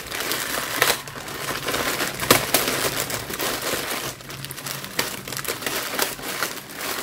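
Thin plastic carrier bags crinkling and rustling as hands bunch them together and wrap a rubber band around them, with irregular sharp crackles.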